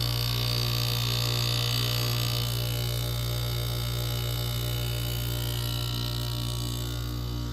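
1986 Gibson 8,000 BTU window air conditioner running with its Matsushita rotary compressor and fan: a steady hum with several steady tones over it. A high hiss is strongest for the first two seconds or so, then fades.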